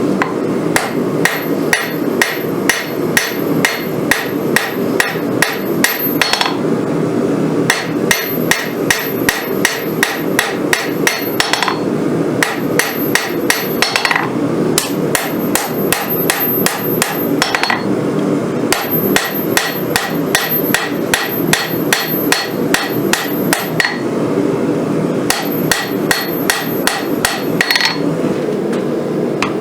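Hammer blows on hot rail-spring-clip steel on an anvil as a sword blade's bevels and profile are forged: runs of strikes about three a second, broken every few seconds by short pauses, over a steady low rushing noise.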